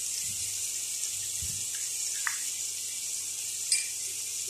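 Squid rings and red curry paste sizzling in a stainless steel pan, a steady high hiss, as a dark sauce is poured in from a small bowl at the start. A couple of light clicks.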